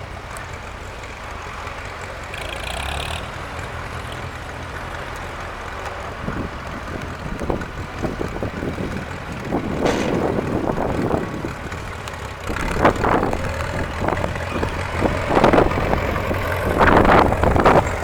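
Farm tractor engines running, with a steady low rumble. Irregular gusts of wind buffet the microphone, growing louder and more frequent about two-thirds of the way through.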